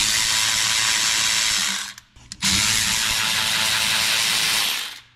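Cordless electric ratchet with a 9/16 socket running in two spells of about two seconds each, with a short pause between them, spinning out the bolts of a sprint car's rear-end gear cover.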